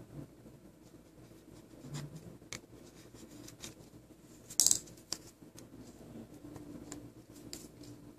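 Quiet clicks and light scrapes of small nail-stamping tools handled on a table, with one short, louder scratchy scrape about four and a half seconds in.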